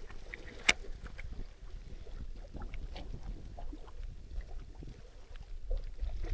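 Water sloshing with small splashes, over a low wind rumble on the microphone, with one sharp click under a second in.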